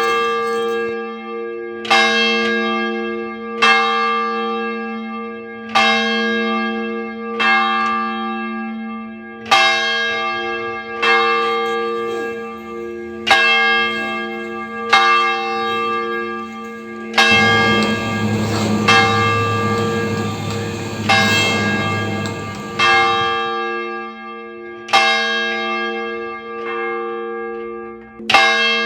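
A single church bell tolling, struck about once every two seconds, each stroke ringing on into the next over a steady low hum. For about six seconds in the middle a rushing noise sounds over the bell.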